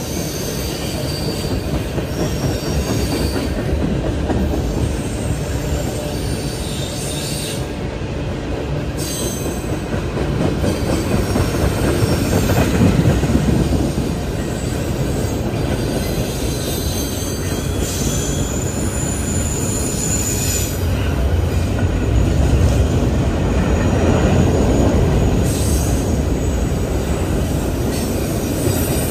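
Freight cars of a mixed train, tank cars then covered hoppers, rolling past on a curve: a steady rumble of steel wheels on rail. High wheel squeal from the curve comes and goes.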